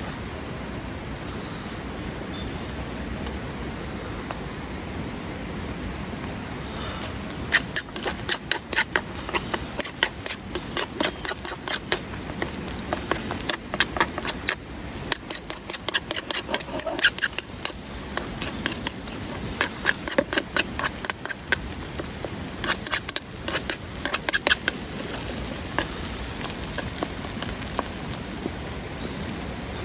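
Steady rain, with a run of quick, sharp taps and clicks through the middle.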